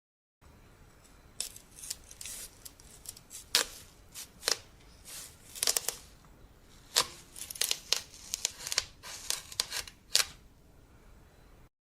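Knife cutting through a watermelon: an irregular series of crisp cracks and snaps as the rind and flesh split, some much louder than others.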